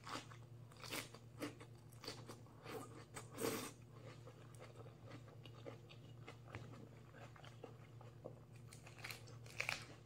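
A person chewing raw lettuce with crisp crunches: several louder crunches in the first few seconds, then softer chewing, and a few more crunches near the end.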